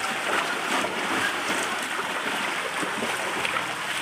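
Several people running and wading through ankle-deep floodwater, a continuous wash of splashing and sloshing.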